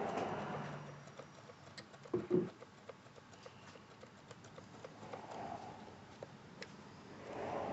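Plastic throttle trigger and linkage in a Stihl TS 400 concrete saw's rear handle being worked by hand, giving small clicks throughout, with a pair of heavier knocks about two seconds in. The trigger had been stuck with debris and has just been freed with diesel.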